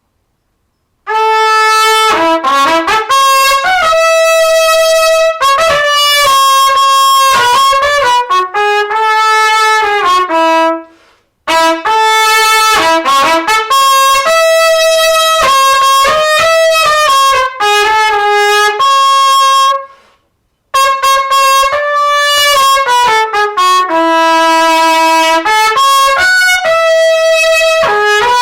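Solo trumpet playing a warm-up: three long phrases of held and slurred notes moving up and down, broken by two short pauses for breath.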